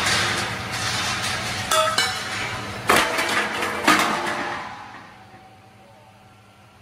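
Reinforcing mesh welding machine working: a rushing hiss with four sharp metallic clanks, one ringing briefly, then it dies down about four and a half seconds in to a low steady hum.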